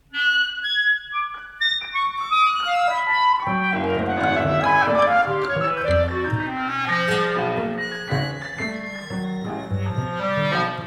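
Contemporary chamber ensemble of clarinet, violin, double bass, guitar and piano playing a dense passage of many short, overlapping notes. It starts suddenly out of near silence, with high notes first and low notes joining about three and a half seconds in.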